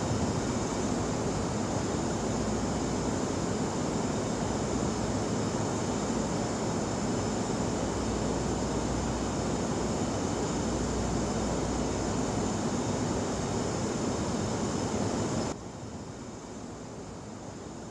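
Electric pedestal fan running with a steady whooshing hum. About fifteen seconds in it cuts down suddenly to a quieter steady hiss.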